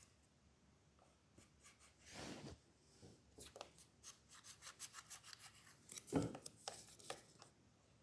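Faint scraping and small ticking at a laptop touchpad as a hard object is worked around the edge of the stuck right-click button, with one louder knock about six seconds in.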